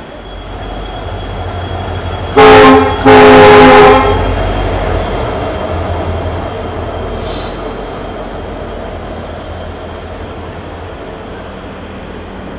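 WDP4B diesel-electric locomotive sounding its horn in two blasts, a short one then a longer one, over the low rumble of its engine as it moves past. A brief hiss about halfway through.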